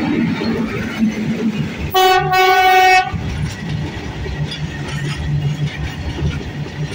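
Freight train of covered BCNA wagons hauled by a WAG-9 electric locomotive rolling past, its wheels rumbling and clattering on the rails. About two seconds in, a single loud locomotive horn blast lasts about a second.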